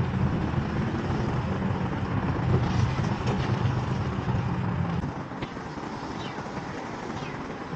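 Road traffic: a steady rumble of passing vehicles, with a low engine hum that fades away about five seconds in.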